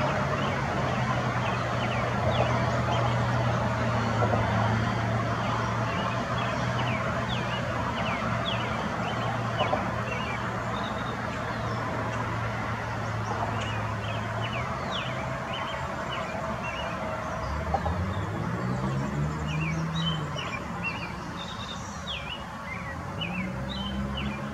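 Road traffic noise with a steady low engine drone that stops about two-thirds of the way through, followed by low engine tones rising and falling as vehicles pass. Many short, high bird chirps sound over it, busiest near the start and the end.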